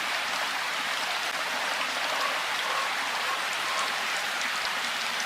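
Steady rainfall, an even hiss of rain with scattered individual drops ticking.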